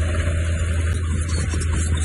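Heavy construction machinery's diesel engine running steadily, with a strong low drone.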